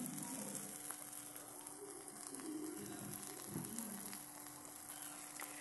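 Masala-coated sardines frying in coconut oil in a wok: a faint, steady sizzle with light crackling.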